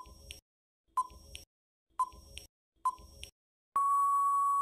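Quiz countdown timer sound effect: four short beeps about a second apart, then one long steady beep near the end marking time out.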